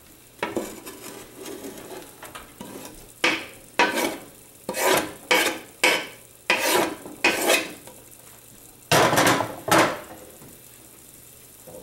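Minced garlic being scraped off a wooden cutting board into a pot of onions sautéing in oil: a run of quick scraping strokes, then two longer ones near the end, over a soft sizzle from the pan.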